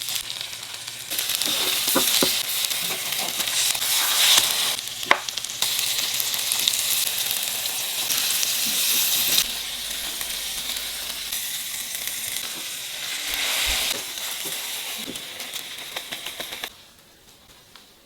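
Frozen-tofu French toast slices frying in a pan: a steady sizzle with a few sharp clicks, which cuts off suddenly near the end.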